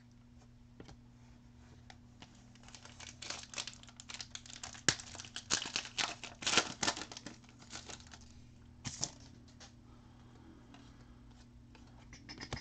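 Foil wrapper of a Panini Crusade basketball card pack being torn open and crinkled: a run of crackling from about two to seven seconds in, then a short crinkle near nine seconds.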